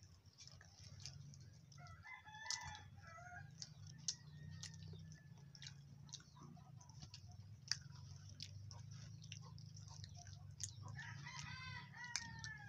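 A rooster crowing twice, once about two seconds in and again near the end, faint over a low steady hum.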